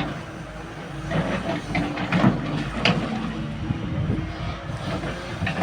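Caterpillar excavator running, its engine giving a steady low drone, with irregular clanks and knocks from the machine at work.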